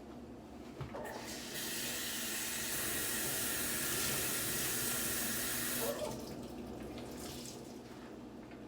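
Kitchen tap running water into a sink, filling it to soak stove parts. The tap comes on about a second in and is shut off about six seconds in.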